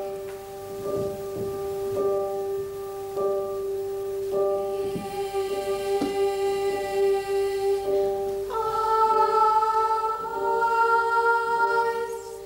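Children's choir singing a slow chromatic scale, note by note, against a grand piano softly repeating a G–D fifth drone with the soft pedal down. About eight and a half seconds in, the voices move up to a higher note.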